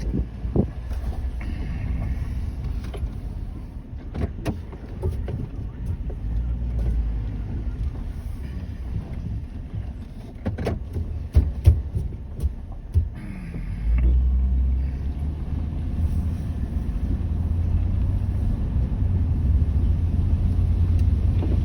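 Low rumble of a moving car, with several sharp knocks scattered through; the rumble gets louder about two-thirds of the way in.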